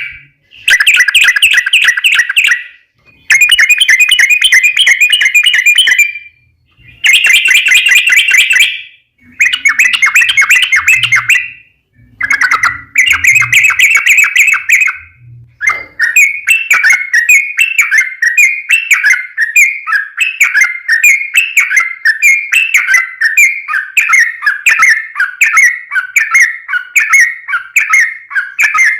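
Yellow-vented bulbul (trucukan) singing its rapid, bubbly song: several phrases of a couple of seconds each with short pauses between, then from about halfway an unbroken run of quick repeated notes.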